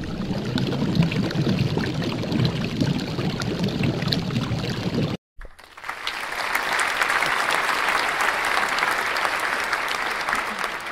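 Sizzling, like food frying in a pan: a lower, crackly stretch, a short cut to silence about five seconds in, then a brighter, hissier sizzle.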